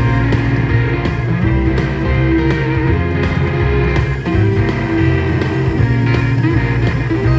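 Background music with guitar and a steady bass line.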